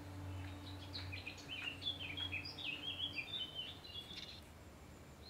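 A songbird singing a quick run of short, high chirping and warbling notes, starting about a second in and lasting about three seconds, over a faint low steady hum.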